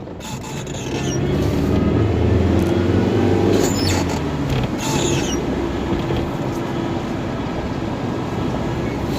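A loud low rumble that swells over the first few seconds and then holds steady, with a couple of short clicks partway through.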